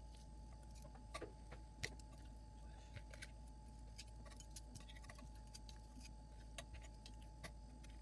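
Near silence: room tone with a faint steady hum and scattered faint small clicks at irregular intervals.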